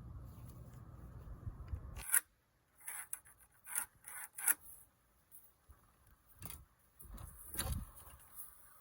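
Vinyl plank flooring being handled: scattered scrapes and clicks, with a sharp knock about two seconds in and a duller thud near the end. Before that, a low steady rumble cuts off abruptly.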